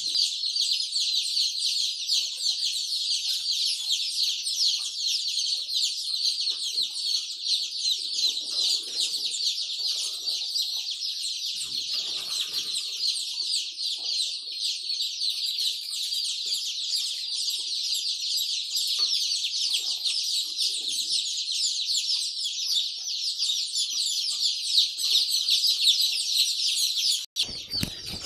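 A brood of day-old Australorp chicks peeping together, a dense, steady chorus of overlapping high-pitched cheeps. It breaks off abruptly about a second before the end.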